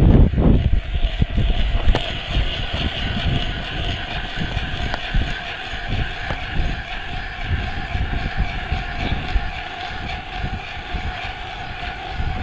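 Steady motor drone of a power ice auger drilling through lake ice, with wind buffeting the microphone.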